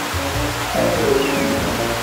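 Water spraying from a hose in a steady hiss as it washes a toy train engine, over light background music.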